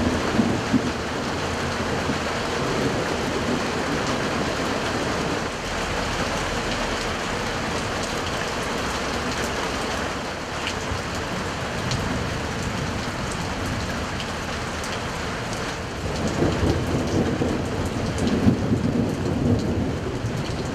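Rain falling steadily during a thunderstorm, with rumbles of thunder just after the start and again in the last few seconds.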